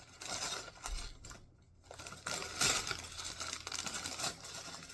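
Small plastic Lego pieces being rummaged through by hand, clicking and rattling against each other, with a short lull about a second and a half in.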